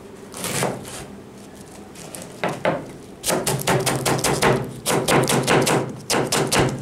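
Chef's knife cutting cabbage into thin shreds on a plastic cutting board. It starts with a few separate cuts, then about three seconds in it becomes a fast, even run of knife strikes against the board.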